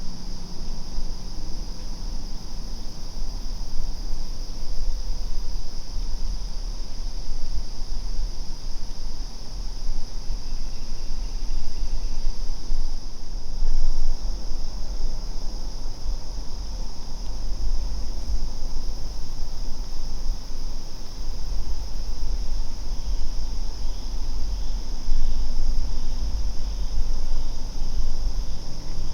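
Steady insect chorus, a continuous high-pitched trill of crickets, over a low rumble from wind on the microphone.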